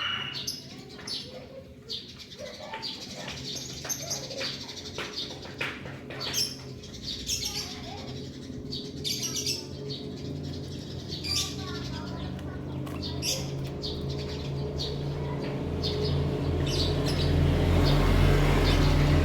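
Small cage birds, a canary and a white-headed munia, give short, scattered chirps and calls. A low, engine-like rumble builds through the second half and is loudest near the end.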